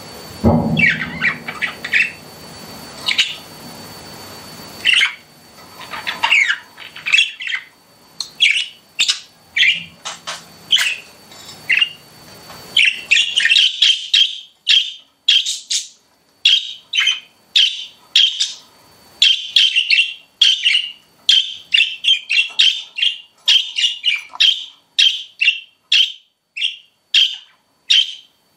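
Pet budgerigars giving short, sharp chirps. The chirps come scattered at first, then about halfway through they turn into a fast, steady run of about two chirps a second.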